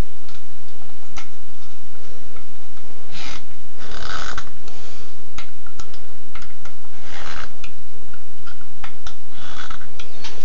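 A T15 Torx screwdriver tightening the ignition coil's mounting screws on a small Tecumseh engine, setting the coil's air gap against a business card held between the coil and the flywheel magnet. Scraping rubs come in several bursts a few seconds apart, with scattered small clicks.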